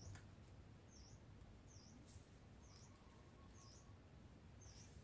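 A small bird gives a faint, high, short chirp over and over, about once a second, against a quiet background.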